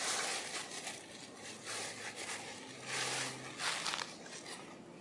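Outdoor ambience: a steady hiss with a few short, irregular bursts of rustling noise, one at the start and two about three and four seconds in.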